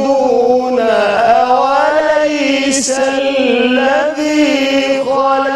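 A man reciting the Quran in the melodic Egyptian tajweed style, holding long ornamented notes that slide and waver in pitch.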